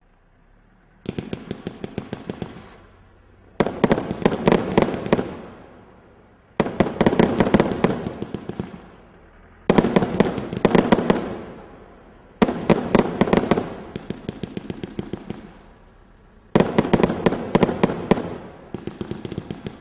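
A 100-shot firework cake firing in six volleys a few seconds apart. Each volley is a quick run of sharp shots and bangs that fades away over a second or two.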